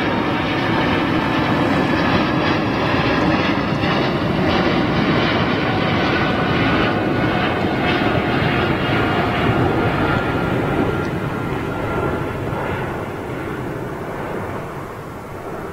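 Airbus A350-1000's twin Rolls-Royce Trent XWB-97 turbofans at climb thrust just after take-off: a steady jet rumble with faint whining tones over it, fading over the last few seconds as the aircraft climbs away.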